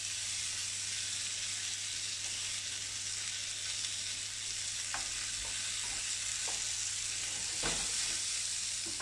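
Diced courgettes sizzling hard in a frying pan over a very high gas flame as they brown. From about five seconds in, the wooden spoons tossing them knock against the pan a few times.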